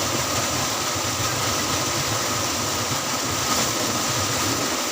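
An engine or motor running steadily, with a constant hiss over it.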